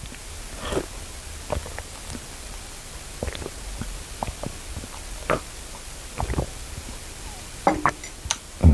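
A man sipping and swallowing a warm ginger drink from a glass: scattered quiet gulps and small clicks, with a louder sound near the end.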